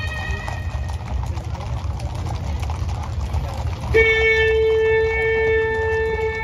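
A steady low rumble, then about four seconds in a parade band's wind instruments suddenly sound a loud, long held note.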